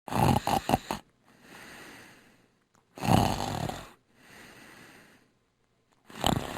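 Person snoring: two loud, rattling in-breaths about three seconds apart, each followed by a softer breath out, and a third starting near the end.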